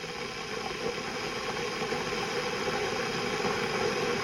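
LONGDEEM 1500 W electric kettle heating water: a steady hissing rumble of water warming toward the boil, slowly growing louder.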